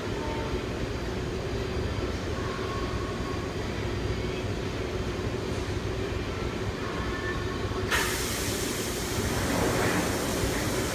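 Vacuum-forming thermoformer running with a steady rumble and hum. About eight seconds in, a loud hiss of air starts suddenly and carries on.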